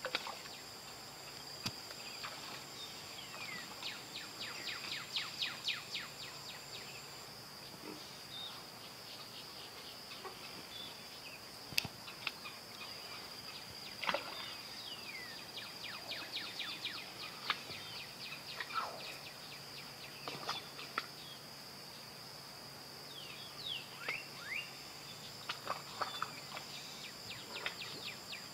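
A steady high-pitched insect drone, with scattered short chirps, falling sweeps and quick runs of clicks over it.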